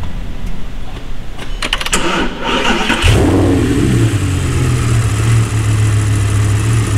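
Audi R8 V10 engine being cranked by the starter, catching about three seconds in with a short rev flare that settles into a steady idle. The idle carries a misfire on cylinder 8, where the injector is getting no pulse from a faulty engine ECU.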